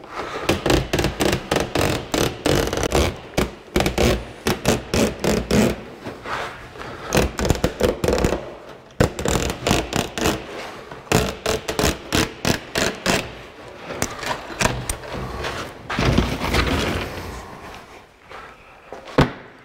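Utility knife cutting a strip from a roll of 1/8-inch hardware cloth (wire mesh): a long run of quick, irregular clicks and scrapes as the wires are cut, with the stiff mesh rattling as it is handled.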